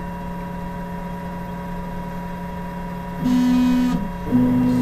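UP Box 3D printer running with a steady hum; about three seconds in its stepper motors start a loud steady whine, stop briefly, and start again as the platform moves to the last auto-levelling probe point.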